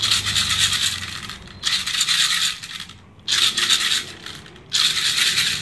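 Airsoft Tech-9 high-capacity shake-type magazine being shaken to reload, with plastic BBs rattling inside. The rattling comes in four spells of about a second each with short breaks between them.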